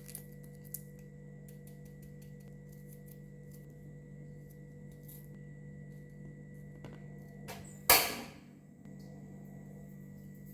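Kitchen sounds while cooking: a steady low hum under scattered small clicks of utensils, and one loud, brief clatter about eight seconds in.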